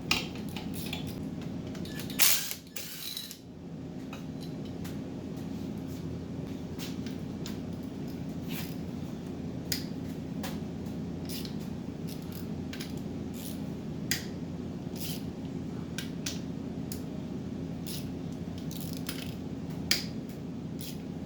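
Hand tools clicking and clinking on metal engine parts during a teardown of the engine's bottom end: scattered sharp clicks every half second or so, with a louder clatter about two seconds in, over a steady low hum.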